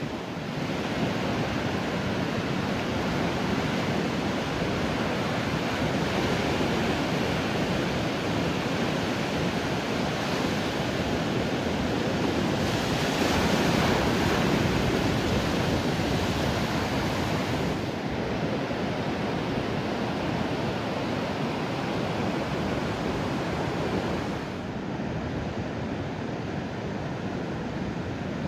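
Ocean surf breaking and washing on a beach, a steady wash of noise that swells around the middle, with wind on the microphone.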